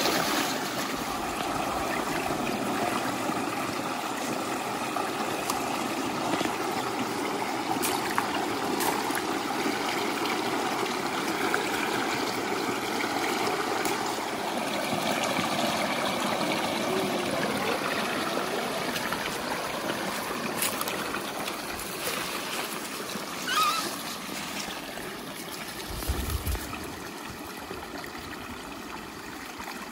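Water streaming and trickling through gaps in a grass-and-bamboo barrier in a shallow canal, with an occasional splash from hands working in the water. The flow grows a little quieter toward the end.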